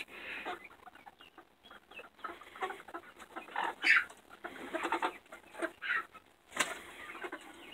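A flock of roosting chickens giving soft, scattered clucks and short calls as they settle on the perch, with one louder call about four seconds in.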